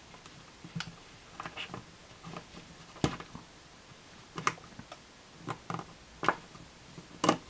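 Irregular light clicks and taps of a plastic Diamond Select Winston Zeddemore action figure being handled and its feet set down on a tabletop while it is posed to stand. There are about eight taps, with louder knocks about three seconds in and near the end.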